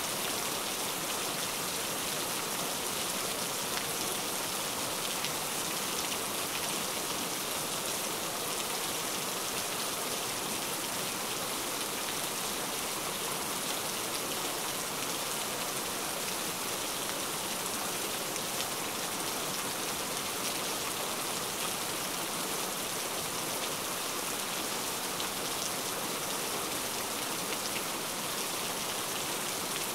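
Heavy rain falling steadily, a dense even hiss of drops with fine scattered ticks.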